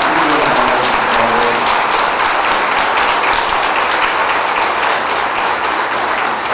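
A congregation applauding loudly: dense, steady clapping from many hands.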